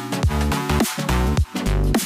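Electronic dance background music with a steady beat, heavy bass and repeated falling swoops.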